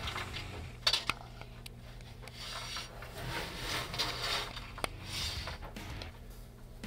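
Nile monitor lizard chewing a rat: rasping, crunching bites with a few sharp cracks of bone, the first two close together about a second in and another near five seconds.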